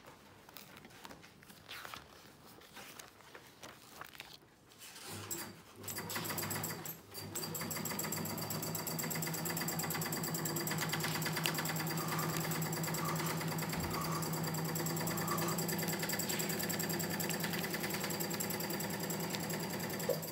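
A sewing machine comes in about five seconds in and then runs steadily at an even speed without stopping.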